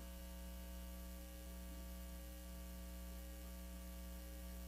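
Steady electrical mains hum on the broadcast audio line, a low buzz with many even overtones, unchanging throughout, with no speech over it.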